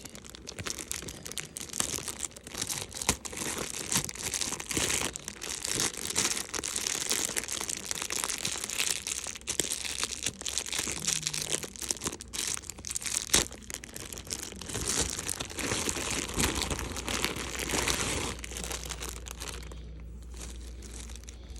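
Packaging crinkling and rustling as it is handled and pulled apart, continuous and crackly, dying down about two seconds before the end.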